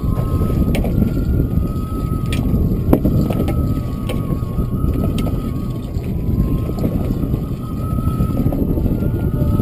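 Steady wind and water noise aboard a small fishing boat at sea, with a faint thin whine and a few scattered sharp clicks and knocks, the loudest about three seconds in.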